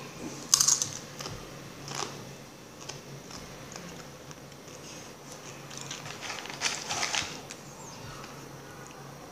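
Crunchy spicy corn chips being bitten and chewed close to the microphone: sharp crunches about half a second in (the loudest), again around two seconds, and a cluster of crunches around seven seconds.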